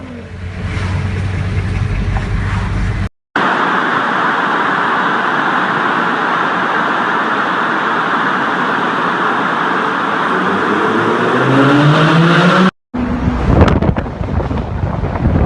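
Lamborghini Gallardo Spyder's V10 engine. It runs low and steady, then gives a long stretch of loud, even noise, with the engine pitch rising near the end as it accelerates. The sound cuts out briefly twice.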